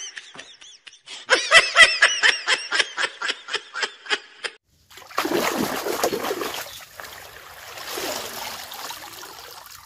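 A person's voice in a quick run of evenly spaced pulses, like laughing, then about halfway through loud water splashing as a large basket is swept through shallow water to scoop fish, easing into softer splashing and trickling.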